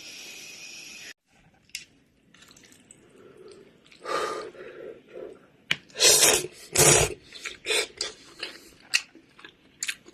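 A steady hiss cuts off about a second in, then close-up eating: irregular chewing and mouth noises with sharp clicks of utensils against a pot or bowl.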